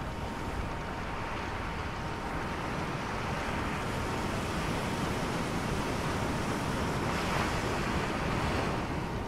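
Steady rushing noise, swelling slightly about three-quarters of the way through, with a faint steady high tone running underneath.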